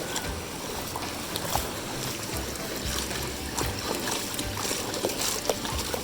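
Mountain stream water running steadily, with a few small clicks and splashes.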